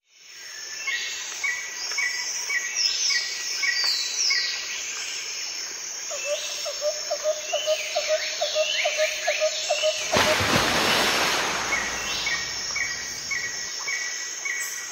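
Bird calls and insect chirping: short repeated chirps, falling calls and a quick pulsing trill. About ten seconds in, a rushing noise lasting about two seconds covers them.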